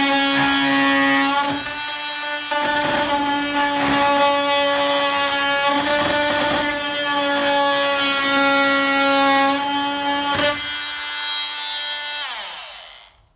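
Oscillating multi-tool cutting a clear polycarbonate sheet: a loud, steady buzz with a strong pitched note that wavers briefly as the blade bites. Near the end the tool is switched off and its pitch falls away as it winds down.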